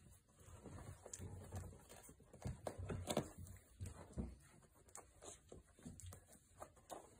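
Five-week-old goldendoodle puppies play-wrestling on a fabric blanket: faint, irregular scuffling, rustling and soft knocks of paws and bodies.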